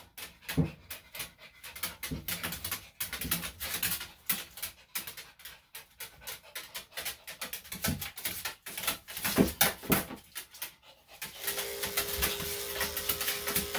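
A senior Maltese/Shih-Tzu panting, with quick irregular clicks and rustles as it is handled. About eleven seconds in, an electric dog clipper fitted with a #10 blade switches on and runs with a steady hum.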